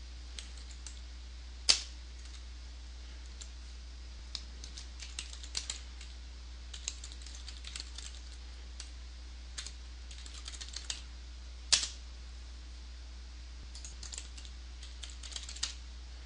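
Typing on a computer keyboard: uneven runs of key clicks with short pauses, and two much louder strokes, one about two seconds in and one near twelve seconds. A steady low hum runs underneath.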